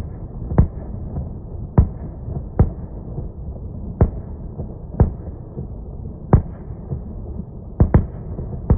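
Fireworks bursting: about ten sharp bangs at irregular intervals of roughly a second, two of them close together near the end, over a steady low rumble.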